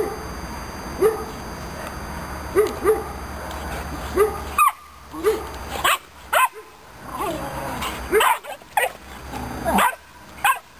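Romanian Mioritic Shepherd puppies barking and yipping while they play-fight. Short barks come about once a second at first, then quicker, higher yips in the second half.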